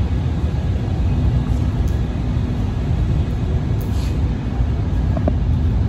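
Steady low rumble of a vehicle engine, with a faint steady hum joining about a second in.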